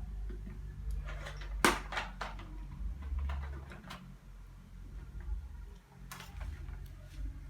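Small hand tools and phone parts clicking and tapping: a cluster of sharp clicks about a second in, a few more around three to four seconds, and another cluster about six seconds in, over a low steady hum.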